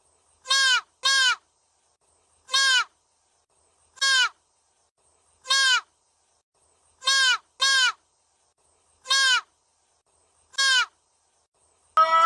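Deer calling: short, high, clear calls that fall in pitch, about every second and a half and sometimes in quick pairs, nine in all. Right at the end, chickens start clucking.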